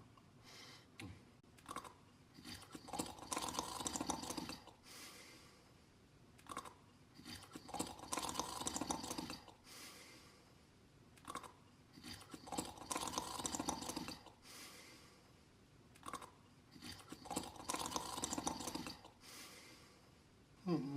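Slow, restful snoring of a sleeper: about four breaths, one every five seconds or so, each a brief sharp sound followed by a longer crackly, rasping stretch.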